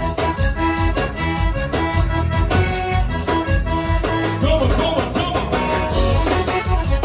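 Live zydeco band playing a dance number: accordion over electric bass and drums, with a steady, even beat.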